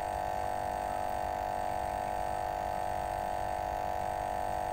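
A steady, even hum made of several fixed tones, holding unchanged without a break.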